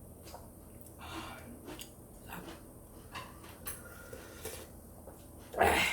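Close-up eating sounds: soft chewing and mouth noises from someone eating seafood noodles, with one louder, brief noisy sound near the end.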